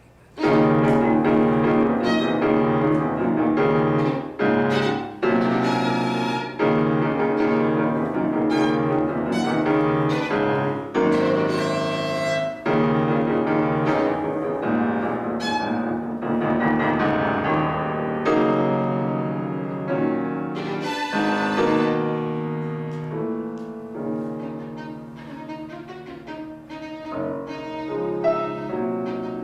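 Violin and grand piano playing together, live, opening a piece with a sudden loud entrance about half a second in and continuing in sustained phrases.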